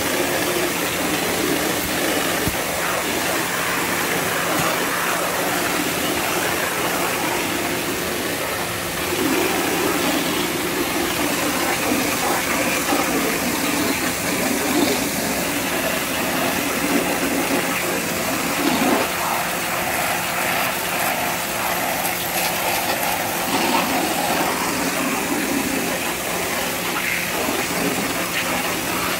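Pressure washer running steadily, its high-pressure water jet hissing and spattering against vinyl house siding; the spray sound shifts as the jet moves across the wall.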